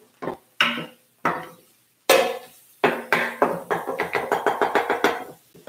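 A wooden spoon and spatula knocking and scraping against an electric skillet as scrambled eggs are broken up. A few separate knocks, a louder one about two seconds in, then a quick run of strikes at about six a second.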